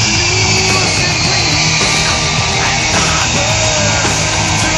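Jet engines of a three-jet-engine truck running loudly while the afterburners shoot fireballs. A high whine falls slowly in pitch throughout.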